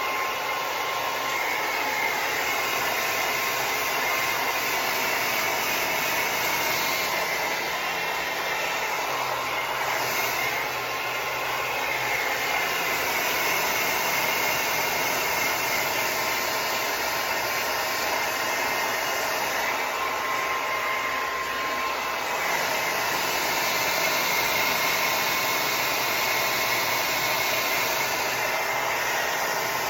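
Handheld hair dryer blowing steadily, a constant rushing noise with a faint whine.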